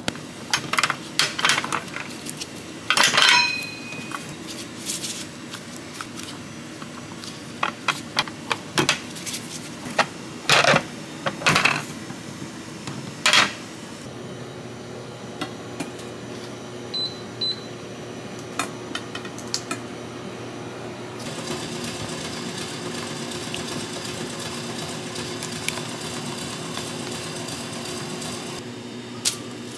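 Kitchen work sounds: scattered clicks and knocks of utensils and containers being handled. About halfway through, a steady machine hum takes over.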